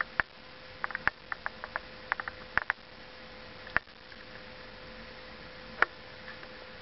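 Irregular sharp clicks and taps, some in quick clusters in the first few seconds and a single louder click near the end, over a steady low hum.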